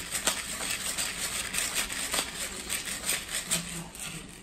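Hand-twisted spice grinder grinding peppercorns over a bowl: a steady gritty rasp with small crackles, which dies away near the end.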